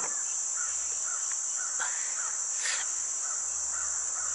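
Steady high-pitched drone of summer insects, with faint, repeated bird calls under it.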